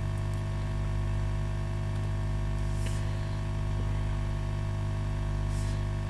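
Steady electrical mains hum with its overtones, and a couple of faint ticks.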